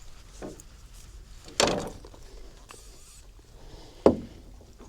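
Two dull knocks about two and a half seconds apart, the second the louder, with a fainter one just before them.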